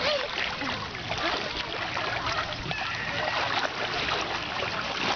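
Shallow seawater splashing and sloshing as children wade and play in it.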